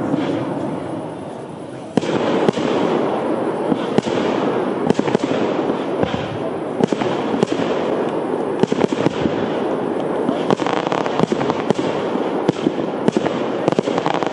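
Fireworks display: shells bursting in a dense run of sharp bangs and crackles, which gets suddenly louder about two seconds in.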